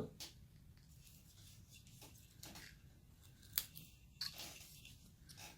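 Carving knife slicing and shaving basswood in short, faint cuts, with a few sharper clicks about three and a half and four seconds in, as the carving is rounded off.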